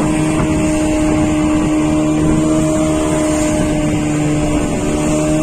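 Fishing boat's engine running steadily under way, a constant drone with a steady hum, over the rush of water along the hull.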